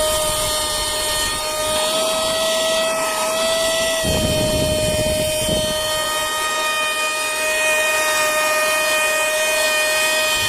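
REDBUZZ cordless mini car vacuum's small electric motor running with a steady high whine, with a brief rush of air from about four seconds in.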